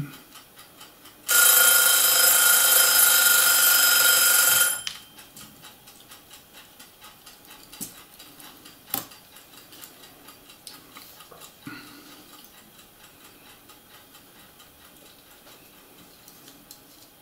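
A loud, steady electronic ringing alarm tone for about three and a half seconds, starting about a second in and cutting off abruptly. After it come faint, scattered clicks of small plastic parts being handled.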